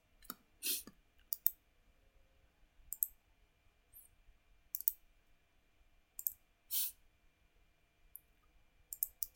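Computer mouse clicking: sparse, irregular single clicks, some in quick pairs and a short cluster near the end, with two brief hissy sounds between them.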